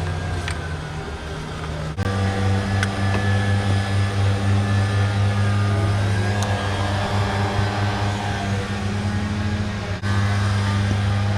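Car engine running at a steady idle, broken by two abrupt cuts about two seconds and ten seconds in.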